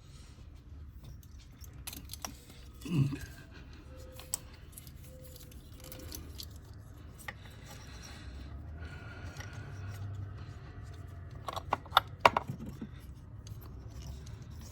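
Small parts and tools being handled while fitting a flex fuel sensor: scattered light clicks, clinks and scrapes, a low thud about three seconds in, and a quick run of louder clicks near the end.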